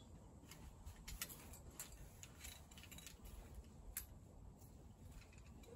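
Faint, scattered metallic clicks and clinks of climbing gear, carabiners and a cam, as protection is placed in a crack.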